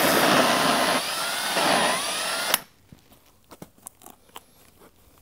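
Cordless hammer drill spinning a Hole Dozer hole saw down into Kaizen foam. It makes a loud whirring for about two and a half seconds, its whine rising and falling, then stops suddenly. Faint handling clicks follow as the cut foam is picked out.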